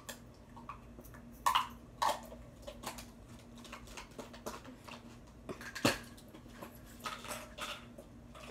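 Handling noise: irregular light taps, knocks and rustles as hands rummage among squishy toys and a drawstring cloth bag, with the sharpest knocks about one and a half, two and six seconds in. A faint steady hum lies underneath.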